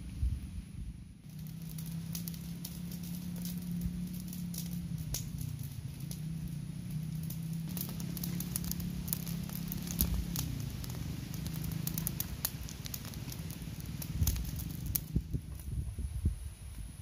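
A wood cooking fire crackling, with many sharp pops over a low steady hum. It starts abruptly about a second in and cuts off near the end.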